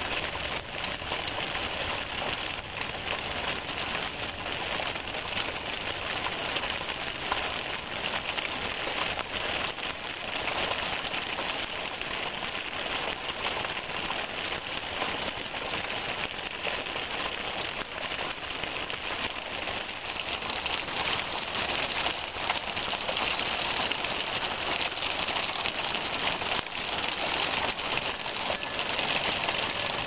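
Small waterfall splashing down a rock face onto stones and into a shallow pool: a steady, hissing splash of falling water, a little louder in the last third.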